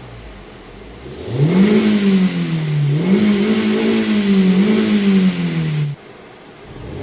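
Four-cylinder car engine revved hard from idle about a second in, held high for several seconds with one brief dip, then dropping abruptly back to idle near the end. The engine is misfiring on cylinder 3 under this load, which is traced to a failing ignition coil and spark plug leaking spark.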